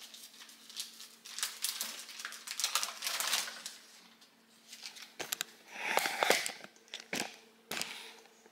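Thin plastic packaging crinkling and rustling in bouts as breast milk storage bags are pulled from a cabinet and handled, with a few light clicks and knocks.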